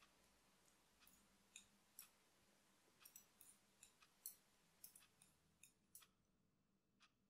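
Knitting needles clicking together in faint, irregular clicks, some coming in quick runs of two or three.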